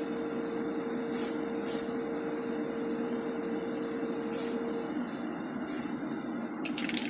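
Spray booth extractor fan running steadily with a constant hum, while short hissing bursts of spray paint go on, five in all, for a light coat. A quick run of clicks comes near the end.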